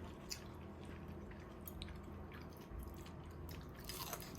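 A person chewing and biting food, with scattered small wet clicks and ticks.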